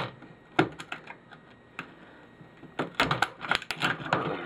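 Hard plastic and metal printer parts clicking and clattering as a printer is pulled apart by hand: a couple of single knocks, a quieter pause, then a quick run of clicks and rattles from about three seconds in.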